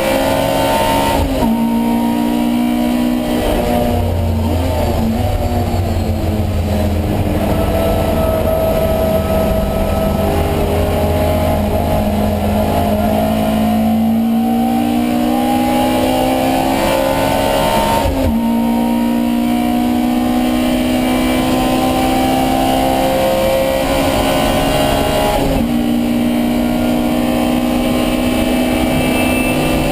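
Alfa Romeo Giulia 1600's twin-cam four-cylinder engine under racing load, heard from on board: revs rising and falling through corners, with abrupt gear changes about a second in and twice more later on.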